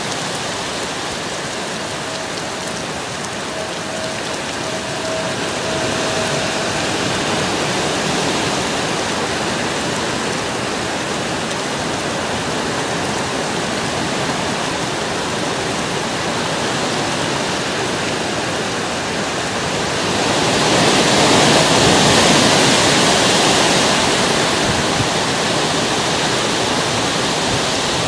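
Heavy rain pouring steadily, swelling louder about twenty seconds in for several seconds before easing back a little.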